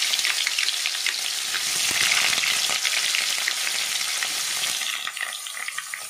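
Paneer cubes sizzling and crackling in hot oil in a steel kadai. The frying is loudest at first and dies down about five seconds in.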